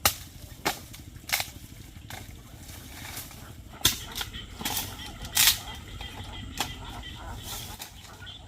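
A series of sharp knocks or snaps at irregular intervals, about seven over several seconds, the loudest a little over five seconds in, over a steady low background.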